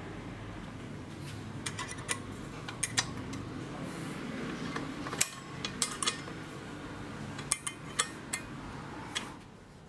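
Small metal parts or tools clinking and tapping against each other, about a dozen sharp clicks at irregular intervals, over a steady low hum that stops near the end.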